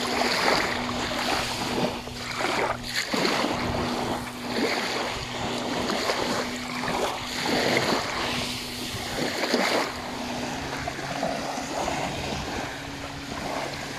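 Sea waves washing on the shore, rising and falling every couple of seconds, with wind buffeting the microphone. A steady low hum runs underneath.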